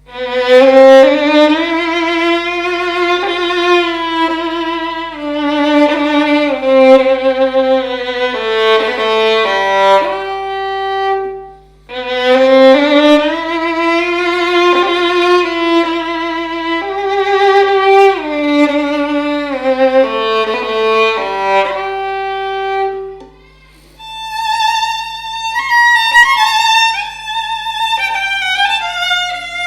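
Solo violin built by Giacomo Margiacchi as a copy of Guarneri del Gesù's 'Il Cannone', being bowed for a sound test. It plays a slow phrase low on the instrument twice, each time followed by a brief pause. It then moves to a faster, higher passage near the end.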